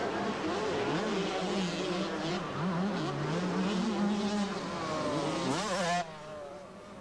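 Several 125cc two-stroke motocross bikes racing, their engines revving up and down as they go through the gears. Near the end one revs up steeply, then the sound drops off suddenly.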